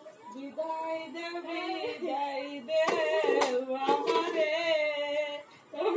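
A woman singing a song unaccompanied, with long held notes, and a couple of sharp hand claps about halfway through.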